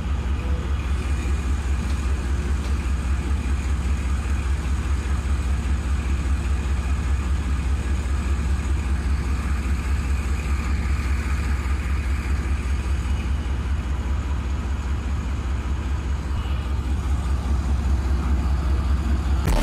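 Diesel locomotive engine idling close by: a steady, deep, even hum that holds without change.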